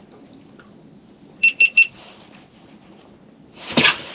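Three quick, identical electronic beeps about a second and a half in. Near the end comes a sudden loud swish and rustle as the jigging rod is swept up in a hookset on a walleye.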